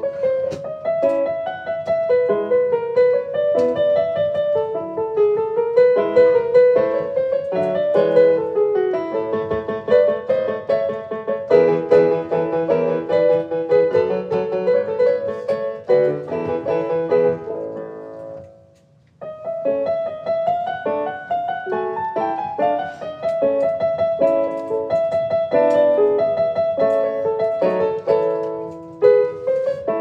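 Background piano music, a melody of single notes over chords. About two-thirds through it fades out, and after a second's gap the piano starts again.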